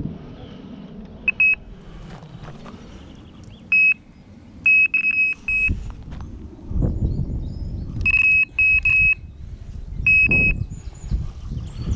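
High electronic beeps on one pitch, single and in quick runs of two to four, repeating at uneven gaps over a low rumbling background.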